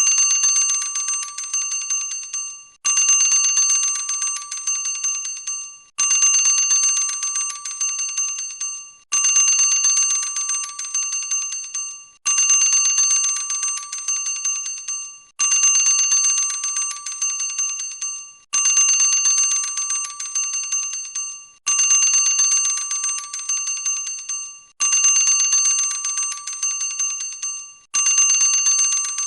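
Boxing ring bell ringing in rapid strokes, in bursts of about three seconds separated by short breaks, repeated about ten times. Each burst is a fast run of strikes over a bright, high, metallic ring.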